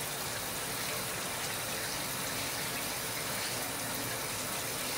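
Running water, a steady, even rush.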